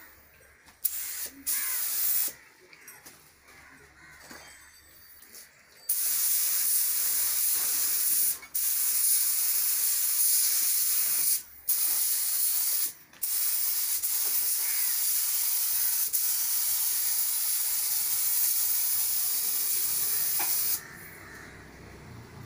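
Compressed-air spray gun spraying clear coat onto a painted motorcycle fuel tank. A couple of short bursts of hiss come first, then a long steady spray hiss with three brief breaks, which stops shortly before the end.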